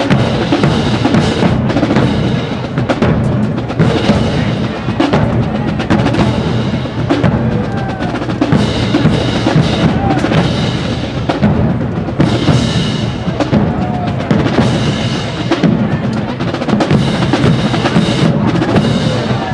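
Marching band playing its field show, led by a drumline of snare and bass drums beating without a break.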